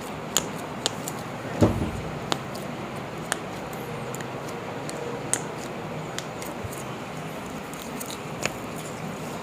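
Chiropractic spinal manipulation: joints cracking under the thrust, with one louder thump about a second and a half in and a few sharp clicks scattered through the rest.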